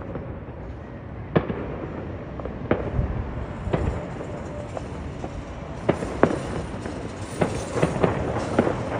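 Distant fireworks bursting: sharp bangs about every second, coming closer together in the second half, over a steady low rumble.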